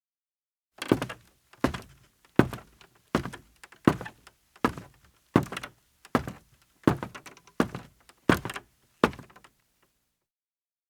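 A man's footsteps in sneakers on a creaky floor: about a dozen evenly paced walking steps, a little more than one a second, each a dull thud with a short creak of the boards, starting about a second in and stopping shortly before the end.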